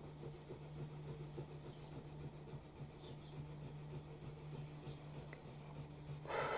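Eraser rubbing pencil lines off sketchbook paper in faint strokes, growing louder near the end.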